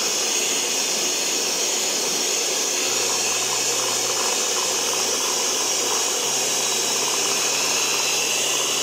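Electric hand mixer running at a steady speed, its beaters whirring through mango pulp and whipped cream as they are beaten together into an ice-cream base.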